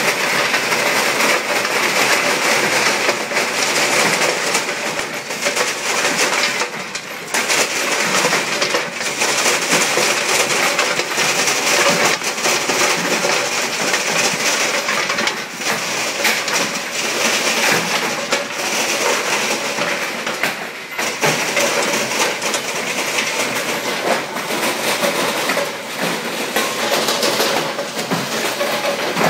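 Quicklime sorting-line conveyor belts and their chain drives running, with lumps of lime rattling along the belts: a loud, steady mechanical clatter.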